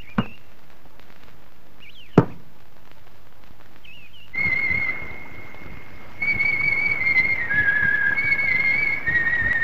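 Two sharp thumps about two seconds apart, each just after a short high chirp. From about four seconds in, a high whistle-like melody of long held, wavering notes begins the song's introduction.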